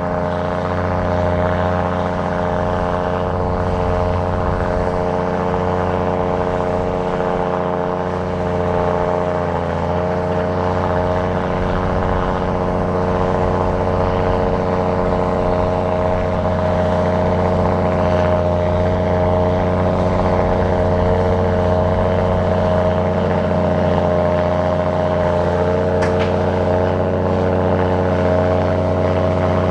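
Heavy earthmoving machine's diesel engine running steadily, its pitch dipping briefly about ten seconds in.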